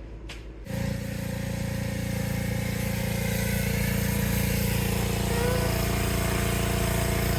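A motor running with a steady hum, cutting in abruptly under a second in and holding steady.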